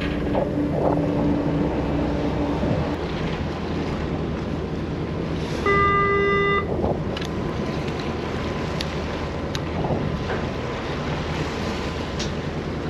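Steady low hum of a large party fishing boat's engines, with wind on the microphone. About halfway through, one loud horn-like beep sounds for about a second, followed by a few faint ticks.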